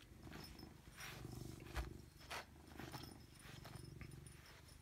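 Domestic cat purring steadily while being brushed, with several soft brush strokes swishing through its fur.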